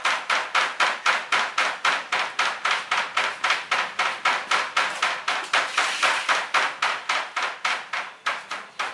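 A rapid, even series of sharp taps or knocks, about four or five a second, that keeps going without a break.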